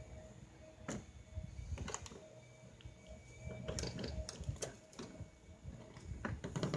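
Irregular clicks and light knocks of roof-rack crossbar fittings being worked into the roof rails, a few single clicks at first and a quick cluster of them around the middle.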